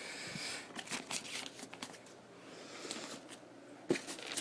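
Rustling and small clicks as a toy wrestling ring's apron is pulled down over the ring's sides by hand, with a sharp knock near the end.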